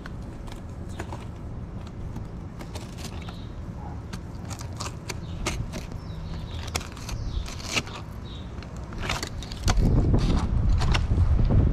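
Fillet knife slicing a whole redfish along the backbone, its blade crackling and clicking over the rib bones and scaly skin in irregular bursts. A low rumble underneath grows much louder near the end.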